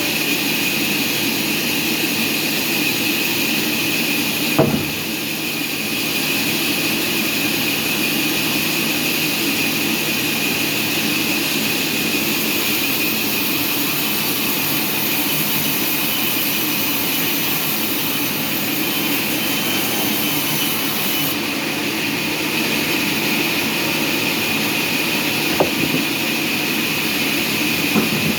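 Sawmill machinery running steadily with a constant high whine over a lower hum, and a few short knocks, one about five seconds in and two near the end.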